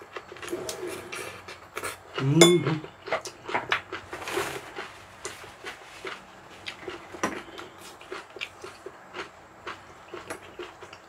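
Eating at the table: chopsticks and spoons clicking against bowls and dishes in a run of short clicks. A brief hummed voice sound about two seconds in is the loudest moment.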